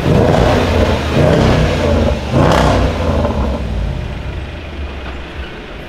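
Range Rover Sport SVR's supercharged V8 exhaust accelerating hard past, in surges, with a sharp burst about two and a half seconds in, then fading as the car pulls away.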